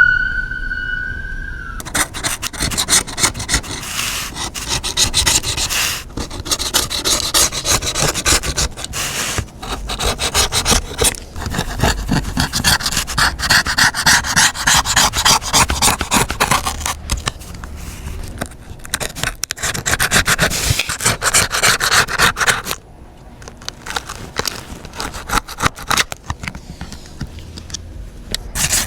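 A rising siren-like tone in the first second or two, then rapid, continuous scraping and rubbing of a tool working on the iPad during its repair, with a few short pauses and a quieter stretch near the end.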